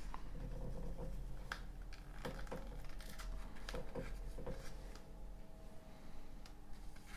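Small handling noises: scattered clicks and scratches as a price-tag sticker is picked at and peeled off, over a steady low hum.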